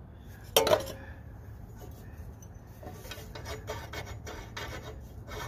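A single metal clank, then rusty metal scraping and grating in uneven strokes as a corroded mower-deck pulley is worked by hand.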